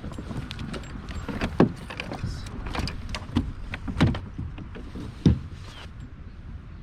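Wind buffeting the microphone with a steady low rumble, over irregular knocks and thumps on a fishing kayak. The loudest thumps come about a second and a half, four and five seconds in.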